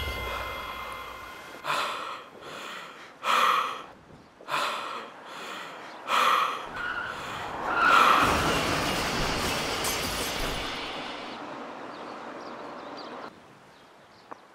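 A person gasping for breath in a run of short, ragged gasps. About eight seconds in, a vehicle rushes past, its noise dying away over several seconds.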